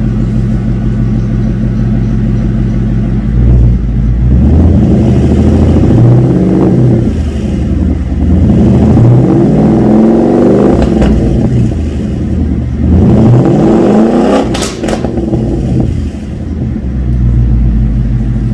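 Supercharged Mustang GT V8 idling through a Solo Performance Mach XV exhaust, then revved up and back down three times, with a short sharp crack at the top of the last rev before it settles back to idle.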